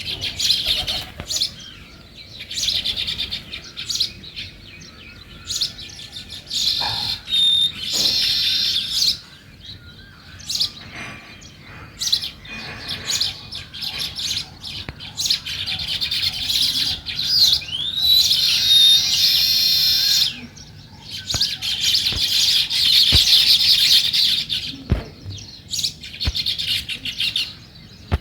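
House sparrows chirping and chattering in repeated busy bursts, each lasting a few seconds, with brief quieter gaps between them.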